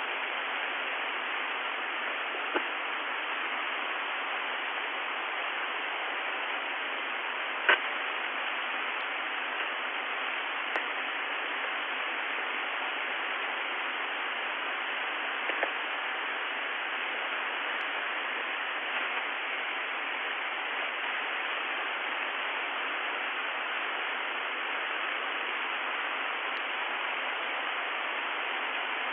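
Shortwave radio static: a steady hiss on the UVB-76 frequency with a few brief crackles, the clearest about eight seconds in. No buzz tone or voice is on the channel; the station has gone dead after its voice message.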